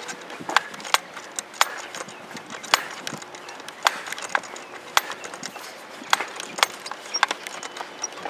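Airsoft gunfire and BB hits: single sharp cracks at irregular intervals, roughly one a second.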